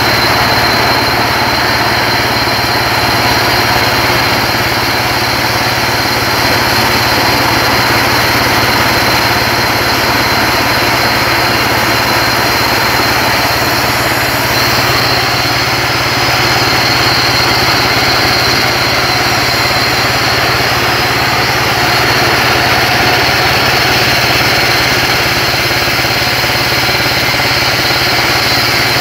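Portable band sawmill running steadily while its blade saws lengthwise through a timber beam: a loud, even machine drone with a steady low hum.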